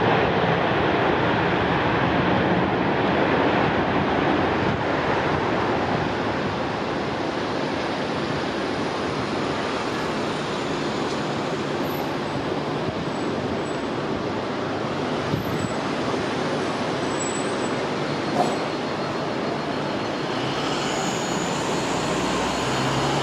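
Jet engine noise from an Airbus A330-300's Rolls-Royce Trent 700 engines as the airliner lands. It is a loud, even rush that eases off over the first several seconds and then settles into a steady rumble.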